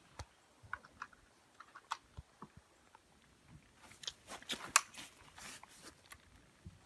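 Light handling noise: scattered small clicks and rustles, thickening into a quick run of clicks about four seconds in, with one sharp click, the loudest sound, just before the five-second mark.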